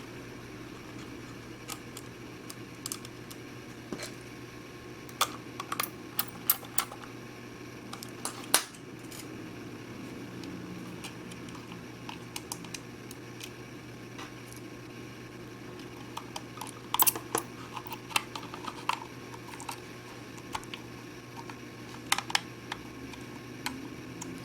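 Scattered small clicks and metallic taps of a screwdriver and tiny screws as a solid-state disk is screwed into a laptop's drive bracket, over a steady low hum.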